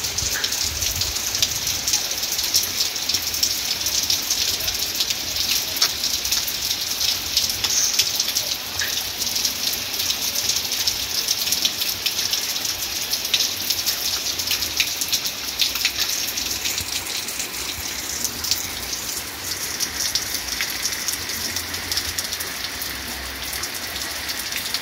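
Heavy rain falling steadily: a dense, even hiss full of fine drop hits.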